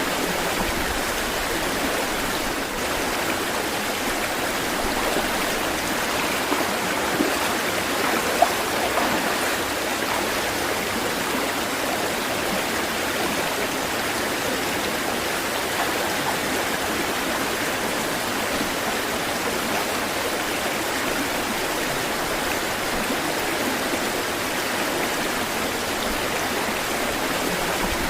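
Running water rushing steadily, like a stream or small cascade, with a few brief sharper splashes about a quarter of the way in.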